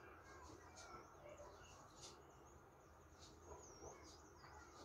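Near silence: faint room tone with a few faint, high bird chirps in the background.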